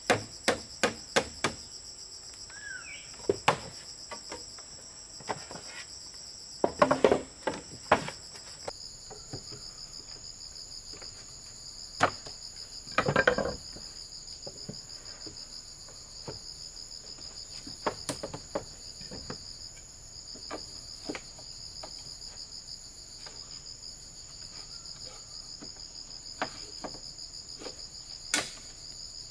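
A steady, high chorus of rainforest insects runs throughout, shifting slightly in pitch about nine seconds in. Over it there is a quick run of sharp knocks at the start, then scattered knocks and thumps, the loudest around seven and thirteen seconds in.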